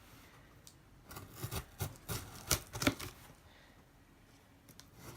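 A shipping box being opened by hand: a quick run of sharp clicks and snips between about one and three seconds in, with quieter rustling before and after.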